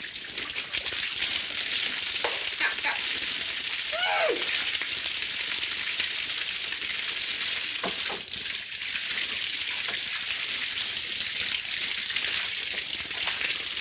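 Water hissing and spraying steadily from a broken pipe. A brief high wavering vocal yelp rises and falls about four seconds in.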